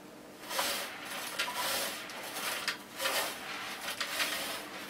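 A long-handled floor tool pushed across the floor in several swishing, scraping strokes, about one a second.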